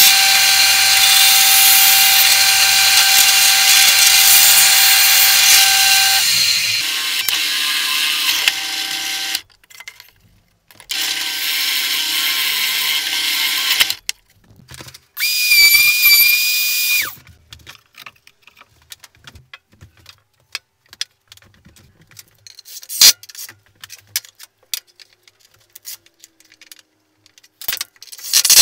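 A bandsaw cuts through a wooden board for about six seconds, then its sound changes and stops. After a short gap, a drill press runs with a Forstner bit, followed by a brief high-pitched whine. The rest is scattered taps and knocks of wooden parts being handled.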